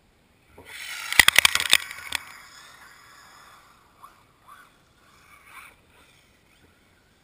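Electric motor of an ECX Revenge 1/8-scale RC buggy whining as it rushes past close by, with a quick run of sharp knocks starting about a second in as it lands and bounces off the snow. The whine then fades as the buggy drives off, with a few short bursts of throttle.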